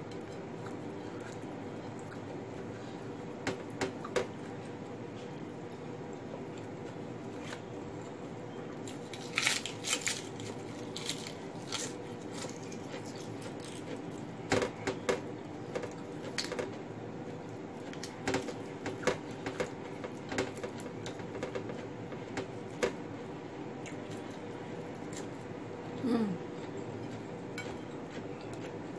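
Someone eating fried fish and rice by hand: scattered clicks and scrapes of fingers and food against a plate, with chewing, over a steady low hum. The sounds come in clusters through the middle, with a short low sound near the end.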